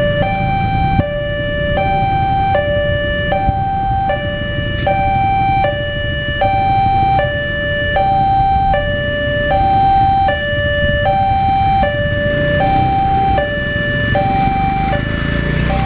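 Electronic level-crossing warning alarm sounding continuously as a two-tone alternation, the high and low notes swapping about every three-quarters of a second. Beneath it is the low rumble of motorcycle and car engines idling at the lowered barrier.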